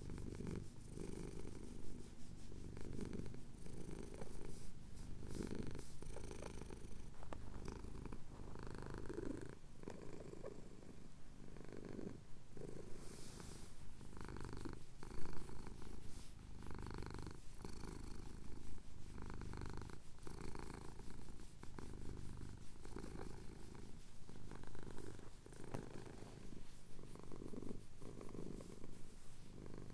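Domestic cat purring close to the microphone, in a steady rhythm of breaths, while having its chin scratched: a contented purr. A single short knock is heard about halfway through.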